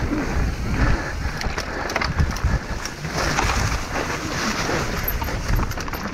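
Wind buffeting the microphone and a mountain bike clattering over rough trail at speed, with many small knocks and rattles from the tyres and frame.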